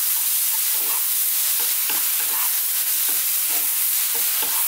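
Mushrooms, tomato and spices sizzling on high heat in a non-stick frying pan, stirred with a wooden spatula that scrapes and knocks against the pan about two or three times a second.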